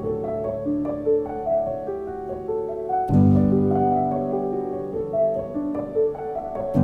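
Piano playing a slow melody of held notes, with a low chord struck about three seconds in and another at the very end.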